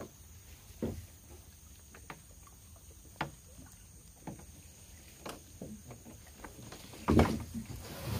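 Scattered knocks and taps against the hull of a small aluminium boat as it is worked along a gill net, with a louder thump about seven seconds in.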